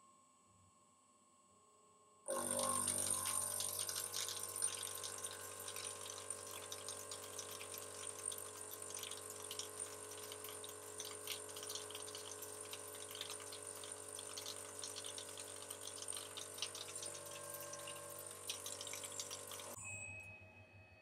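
Homemade single-point fly cutter in a CNC mill spindle taking a 2.5-inch-wide facing pass at 3000 RPM and 25 inches per minute feed. The cut starts suddenly about two seconds in as a steady high whine over a dense crackly hiss, and drops away about a second before the end as the cutter clears the block.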